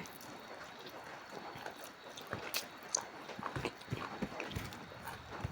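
Soft, close-up eating sounds: chewing with small wet mouth clicks. There is a scatter of short ticks that come more often from about two seconds in.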